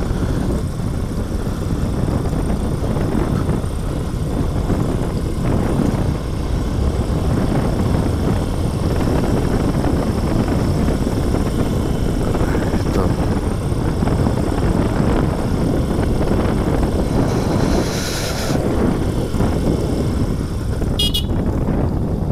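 Motorcycle riding along at a steady speed: the engine runs under a constant rush of wind on the microphone. A brief high, rapidly trilling ring sounds near the end.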